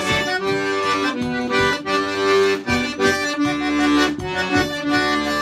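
Temple piano accordion playing an instrumental passage: a melody in held notes over a steady rhythmic bass.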